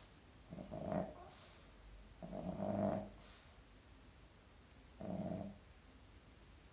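A sleeping pet snoring: three rough, rattling snores a couple of seconds apart, the second the longest and loudest.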